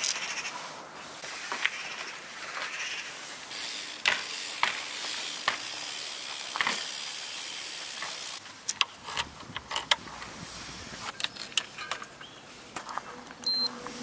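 Mountain bike being handled and wheeled: scattered clicks, knocks and ratcheting of its parts, with a steady hiss lasting about five seconds in the middle.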